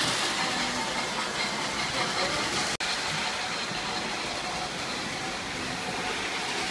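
Model electric train running on its track: a steady rumbling whir, loudest at the start, with a momentary break about three seconds in.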